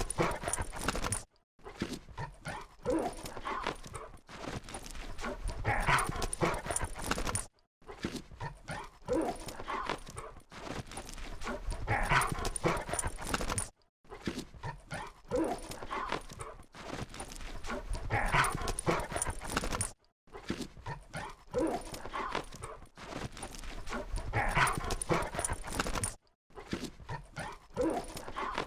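Labrador retrievers playing, with dog vocal sounds mixed into busy scuffling. The recording breaks off briefly and restarts about every six seconds, like a short clip looped.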